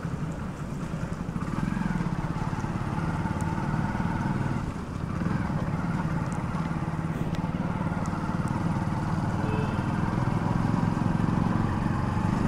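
Hero Splendor's single-cylinder four-stroke engine running steadily under a rider at road speed, easing off briefly twice.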